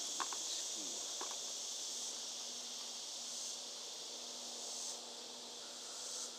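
Steady high-pitched insect chorus outdoors, swelling louder and dropping back a few times. A couple of light clicks come near the start.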